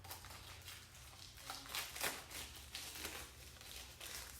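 Unboxing handling noise: light rustling of packaging with a few soft clicks and knocks as the drone batteries are taken out and handled.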